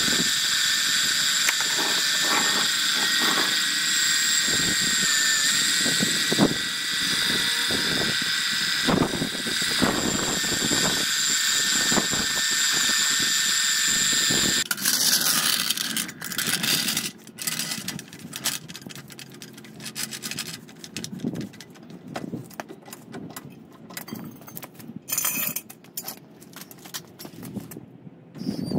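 Small electric oil transfer pump running with a steady high whine while it pumps gearbox oil back into the gearbox; it cuts off about halfway through. Scattered clicks and knocks follow.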